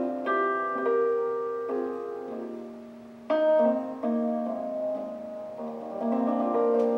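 Gentle piano music: chords and single notes that ring and die away, with a louder chord struck about three seconds in.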